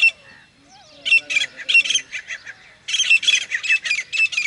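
Grey francolins calling: harsh, rapid runs of repeated ringing notes, one bout about a second in and a longer, denser run from about three seconds in.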